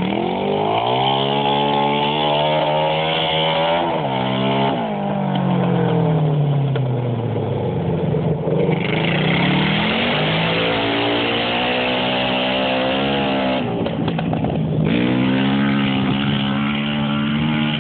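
Quad bike engine revving hard through the gears: its pitch climbs and drops sharply at each shift, sags for a few seconds as the throttle eases around the middle, then climbs again and holds at high revs near the end.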